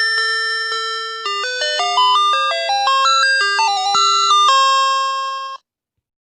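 Electronic school bell chime playing a melody of bell-like tones, a few slow notes then a quicker run, ending on a held note that cuts off abruptly about five and a half seconds in.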